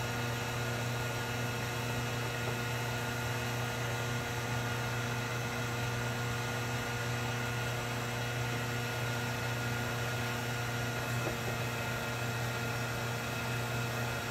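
Handheld electric heat gun running steadily, its fan and element giving a constant hum with a hiss over it, as it heats a barrel-to-valve-body joint to keep low-temperature brazing alloy molten.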